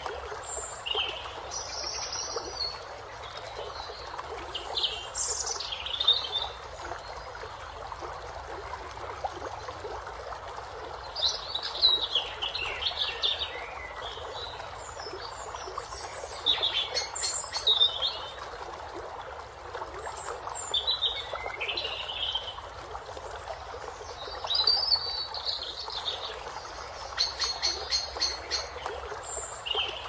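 Hummingbirds chittering: about eight bursts of rapid high chips and short falling notes, a few seconds apart, over a steady hiss of rain.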